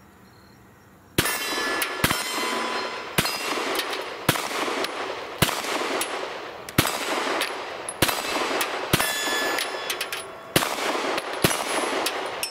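HK VP9 9mm pistol fired slowly, ten shots about a second apart, each followed by steel targets ringing out.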